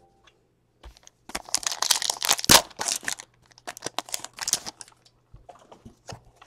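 Foil card-pack wrapper being torn open and crinkled by hand, a dense crackling run that peaks about two and a half seconds in, followed by lighter scattered crinkles and clicks as the cards are handled.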